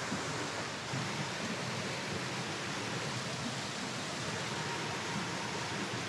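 Mountain stream water rushing over rocks and a small waterfall, a steady, even rush of water.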